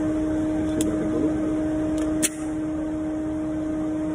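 A loud, steady hiss with a low hum at two steady pitches, broken by three short sharp cracks about one second and two seconds in. The last and strongest crack is followed by a brief drop in level.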